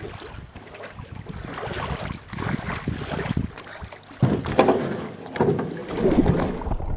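A canoe at a rocky shore: water sloshing and lapping against the hull, with irregular knocks and scrapes as the boat is pulled in against the rock, growing louder about four seconds in.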